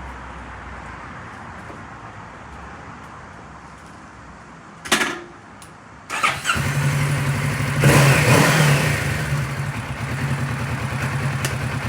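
Kawasaki Ninja 650's parallel-twin engine cranking and catching about six seconds in, revving briefly around eight seconds, then settling into a steady idle.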